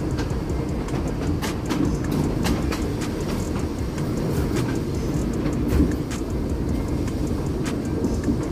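1944 PCC streetcar running along the track, heard from inside the car: a steady low rumble of wheels on rail with scattered sharp clicks and rattles.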